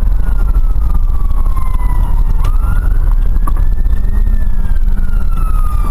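Fire engine's wail siren, one slow sweep that falls in pitch, rises again about two seconds in, then falls once more. A heavy low rumble of engine and road runs under it, heard from inside the cab.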